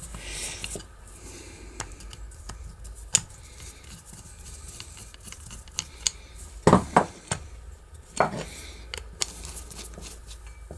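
Scattered small metal clicks and scrapes from a steel rod working at the gear inside a Hueck metal window handle's gearbox as the inner parts are loosened, with a few louder clinks about three, seven and eight seconds in.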